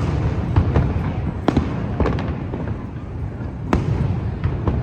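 Aerial fireworks display going off: a continuous low rumble of booms with sharp cracks every second or two, the loudest about three-quarters of the way through, and smaller pops scattered between.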